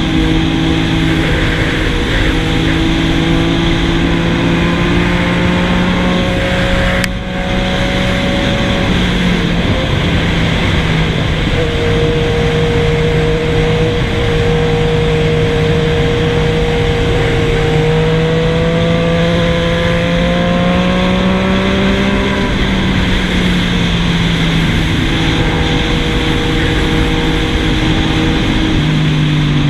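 Yamaha MT-09's inline three-cylinder engine running through an aftermarket stainless 3-into-1 full exhaust, its note steady over a rushing noise. It dips briefly about seven seconds in, climbs slowly in pitch for about ten seconds, then falls back and steps down again near the end.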